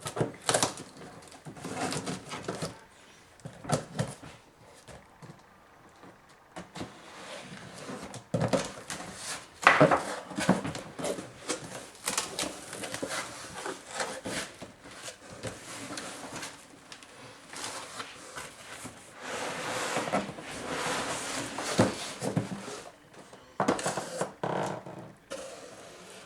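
A PC case being handled and opened: irregular clicks and knocks with rustling in between, one sharp knock about ten seconds in.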